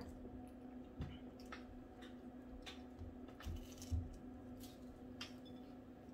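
Faint eating sounds: a series of about eight short, soft mouth clicks and squelches of chewing, over a steady low hum.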